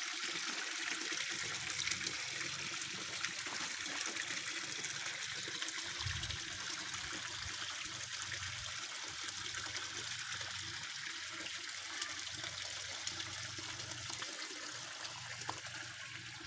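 Water splashing and trickling into a garden pond from a small inflow, a steady rushing hiss that gets a little fainter near the end.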